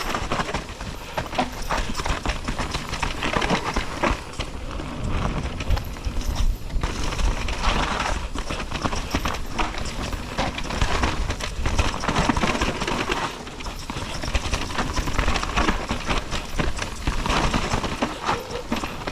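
Orbea Rise e-bike rattling and clattering down a rough singletrack, its tyres rolling over dirt, roots and rocks in a rapid run of knocks and clicks. There are brief lulls about seven and thirteen seconds in.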